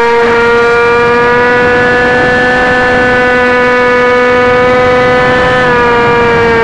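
Dynam Hawk Sky model plane's electric motor and propeller whining steadily, heard up close from on board, with some wind rush underneath. The pitch dips slightly about five and a half seconds in.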